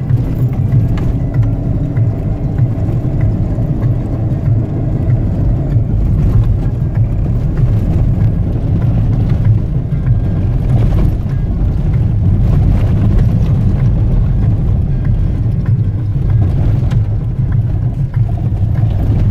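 A 4x4 driving on a rough dirt track, heard from inside the cabin: a steady, loud low rumble of engine, tyres and body, with a few knocks as it goes over bumps.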